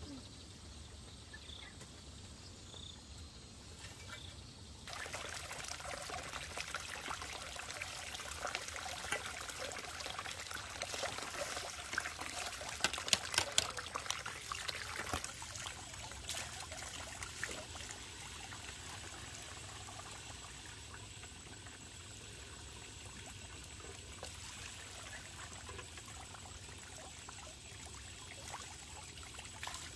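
Water starts running about five seconds in and keeps flowing steadily, with a few louder knocks in the middle.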